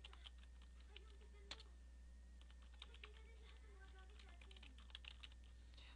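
Faint computer keyboard typing: irregular key clicks as an email address is typed in, over a steady low hum.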